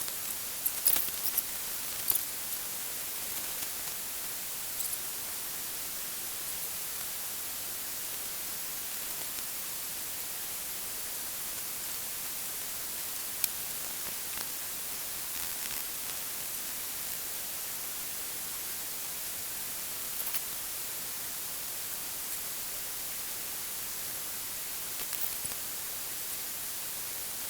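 A steady, even high hiss with a few faint clicks and ticks scattered through it, the sharpest a single tick about 13 seconds in.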